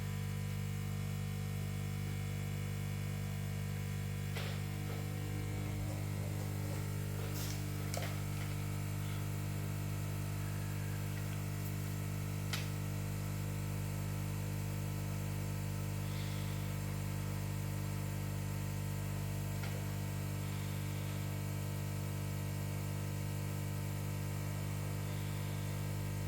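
Hot air rework gun blowing steadily: a constant low hum with a faint airy hiss, drying alcohol off a circuit board. A few faint ticks come through.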